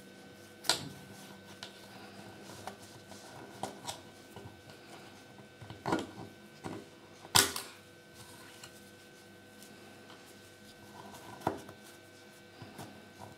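Small plastic Kinder Surprise toy parts being handled and pressed together, giving a handful of sharp clicks and snaps between quieter ticks and rustles, the loudest click about seven seconds in.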